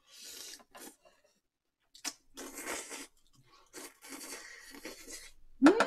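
Ramen noodles from a bowl of rabokki slurped and chewed: three hissing slurps, the last about a second and a half long. Near the end a short voice hum rises and falls.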